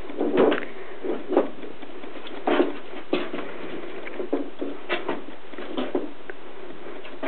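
Six-week-old Portuguese Water Dog puppies scuffling as they play, their paws and bodies making an irregular run of short scuffs and taps on the mats of the whelping box.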